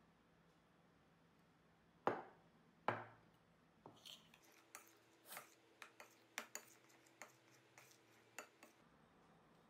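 Two sharp knocks about a second apart, then a spoon clinking and scraping against a glass mixing bowl in quick, irregular ticks while glutinous rice flour is stirred into pumpkin purée.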